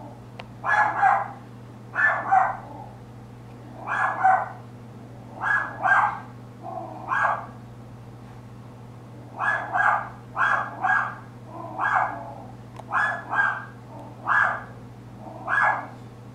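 Chihuahua barking angrily at the mail carrier: sharp barks, mostly two at a time, a burst every second or two, with a pause of about two seconds midway.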